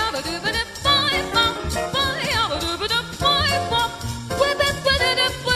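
A woman scat singing: quick, wordless vocal runs that leap and wiggle in pitch, over a swing-jazz accompaniment with bass and drums.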